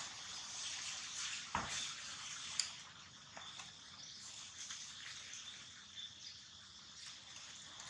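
Dry fallen leaves rustling and crackling as a baby macaque moves over them, with a few sharper clicks early on, over a steady high hiss.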